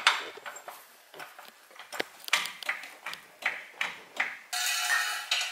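Metal parts and tools knocking and clinking during under-car suspension work, a string of sharp taps and knocks, then a brief harsh grating sound near the end.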